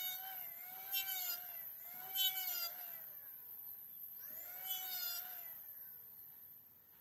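Makita electric hand planer running with a high whine, making three short shaving passes across the end of a wooden sofa leg frame, the motor's pitch bending with each cut. The motor then spins down near the end.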